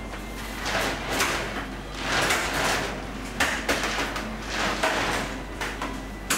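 A rope of rock candy being dragged and rolled along a stainless steel bench: a run of irregular swishing, rubbing sounds with a couple of sharp knocks.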